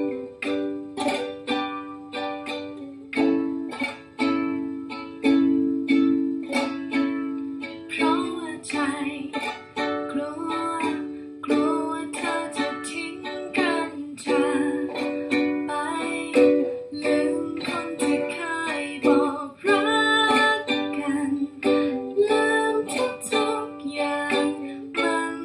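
Ukulele strummed through a repeating four-chord progression in a Hawaiian-style pattern: down, finger-roll, up, up, down, down, finger-roll, up, up, down. The finger-rolls fan the fingers across the strings from little finger to index. From about eight seconds in, a voice sings a melody over the strumming.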